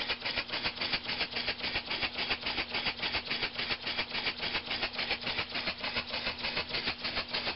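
Homemade oscillating-cylinder (wobbler) model steam engine running slowly on compressed air: a steady, even chuff of exhaust puffs at about six or seven a second, with a faint steady hum underneath.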